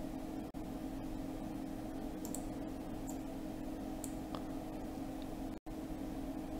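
Steady low hum and hiss of room tone picked up by the microphone, with a few faint computer-mouse clicks. The sound drops out for an instant twice, about half a second in and near the end.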